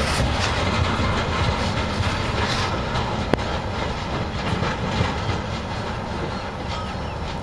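Freight train of log-loaded flatcars rolling past, its steel wheels making a steady rolling noise on the rails. There is one sharp click about three seconds in, and the sound eases off slightly toward the end.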